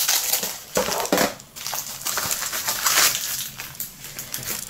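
Crinkling and rustling of a padded paper mailer being handled, and of the plastic bag inside being pulled out of it, in uneven surges.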